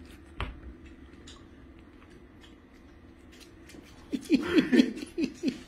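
A small dog's claws clicking and pattering on a hard floor after a knock about half a second in. Then, about four seconds in, a rapid run of rustling with short sounds that rise and fall in pitch as the dog noses into a paper bag.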